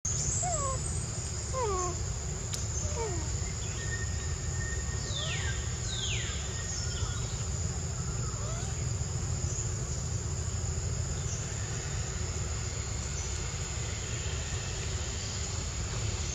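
Forest ambience: insects keep up a steady high-pitched drone over a low steady rumble. Short falling call notes come in the first three seconds, and two longer falling calls come about five to six seconds in.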